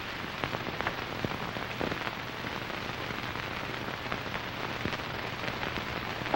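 Steady hiss with scattered crackles and clicks and a faint low hum: the background noise of a worn old film soundtrack.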